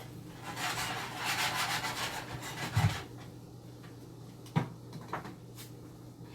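Rasping, rubbing scrape of garlic being worked for about two seconds, ending in a dull thump. A sharp knock follows a little under two seconds later, then a lighter one.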